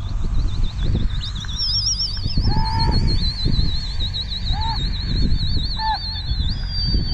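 Wind rumbling on the microphone in open country, over long high warbling bird calls that wobble quickly in pitch, joined by a few short, lower bird calls.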